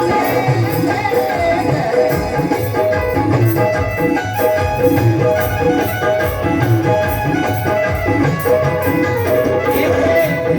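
Indian folk devotional music in an instrumental passage: a hand-drum beat with steady jingling percussion and held melodic tones, no singing.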